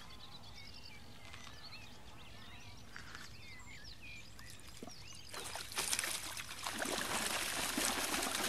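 Water splashing loudly as a hooked pike thrashes in a landing net, starting about five seconds in. Before that, faint birdsong.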